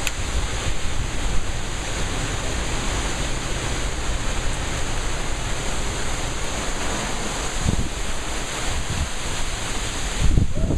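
Strong thunderstorm wind rushing through trees and buffeting the microphone with a low rumble, steady and loud, with a stronger gust near the end.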